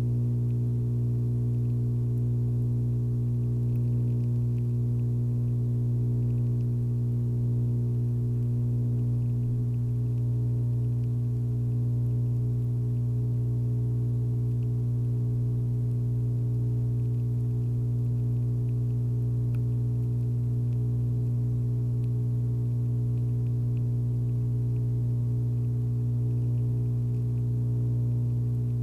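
Steady electrical hum: a deep, unchanging tone with a row of fainter overtones above it.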